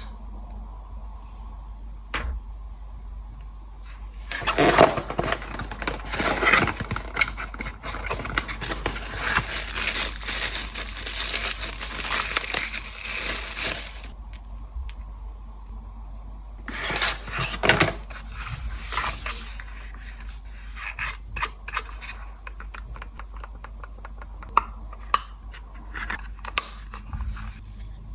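Packaging being opened and handled by hand: a long stretch of scraping, tearing and rustling, another short burst a few seconds later, then scattered light clicks and taps, over a steady low hum.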